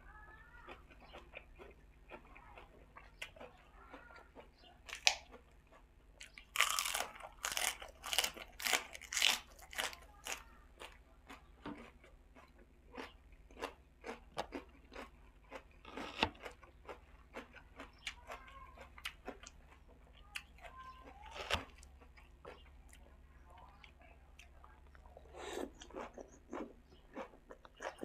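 Close-miked chewing and crunching of yam sai tan (spicy pork uterus salad) eaten with fresh raw vegetables and herbs. Irregular wet clicks run throughout, with a dense run of loud crunches from about 6 to 10 seconds in, single sharp ones twice more, and another cluster near the end.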